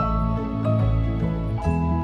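Instrumental background music: sustained pitched notes over a low bass, moving to a new chord a little past halfway.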